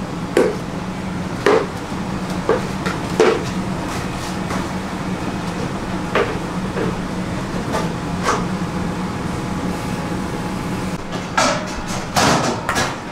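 Kitchen clatter: a string of sharp knocks of cookware and utensils, several close together near the end, over a steady low hum.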